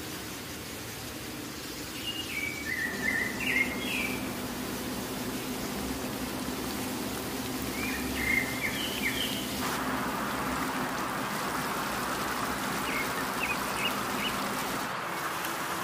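Birds chirping in three short bursts, over a steady low hum; a steady hiss comes in about ten seconds in.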